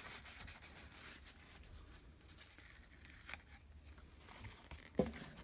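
Faint rustling of paper and paper towel being handled, with a sharp click about three seconds in and a louder soft knock near the end.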